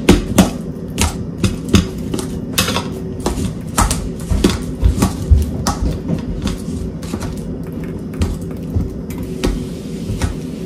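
Metal utensils clinking and scraping against a stainless steel bowl while ripe avocado is mashed in it, in irregular taps, a few a second.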